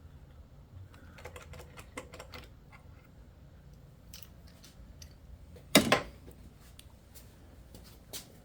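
Scattered light clicks and taps of hand tools as a spark plug is snugged down with a socket and extension, with one louder clack just under six seconds in.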